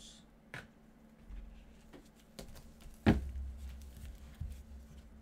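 Trading cards in rigid plastic holders handled with gloved hands: a few light clicks and taps, with one sharp louder knock about three seconds in.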